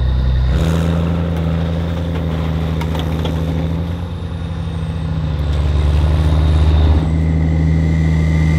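A heavy vehicle engine running steadily under load. It grows louder from about five seconds in, and its pitch shifts again near seven seconds.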